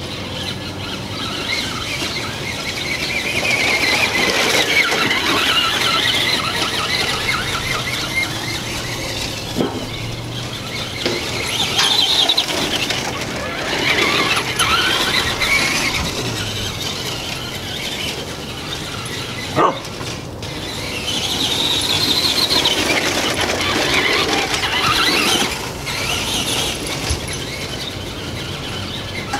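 Traxxas Bigfoot 4x4 RC monster truck's electric motor and gears whining as it drives, the pitch rising and falling with each burst of speed, in several waves. A brief sharp sound cuts in about two-thirds of the way through.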